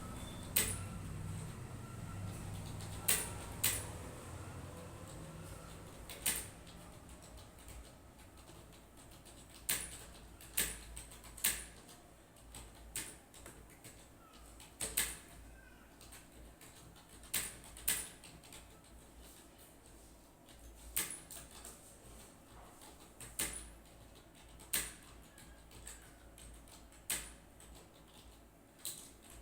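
Scattered, irregular clicks of computer keyboard keys, roughly one a second. A low hum fades out over the first few seconds.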